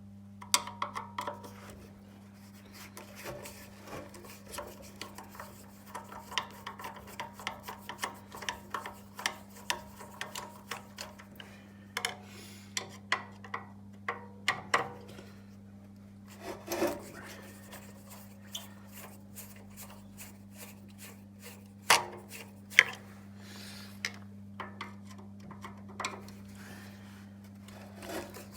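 Hand work on a Makita chop saw being taken apart: irregular clicks, taps and rubbing scrapes of tools and parts, with a couple of louder knocks in the second half. A steady low electrical hum runs underneath.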